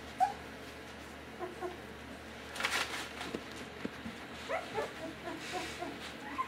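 Four-week-old puppies whimpering and squeaking in short, high yips while they play and tumble together, with a brief scratchy rustle about two and a half seconds in; the squeaks come thicker toward the end.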